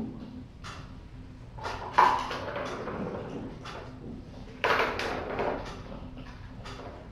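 Kittens playing on a hard floor: scuffles and knocks, the loudest two about two seconds in and just before five seconds, each trailing off over about a second, with lighter ticks between.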